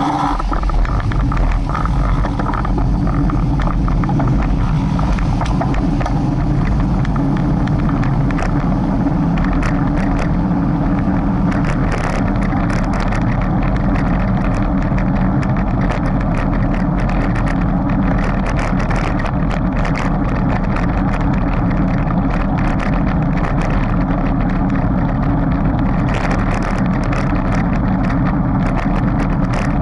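A steady engine-like running sound, loud and even throughout, with many short light clicks over it from about eight seconds in.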